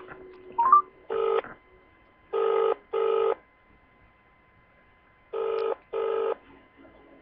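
British telephone ringback tone played through a phone's loudspeaker: the outgoing call is ringing and waiting to be answered. After a short rising beep there is one ring, then two double-rings three seconds apart.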